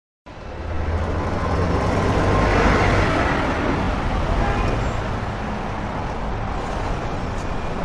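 Steady traffic-like noise with a low rumble, like a car on the road, used as the track's intro before any music or singing.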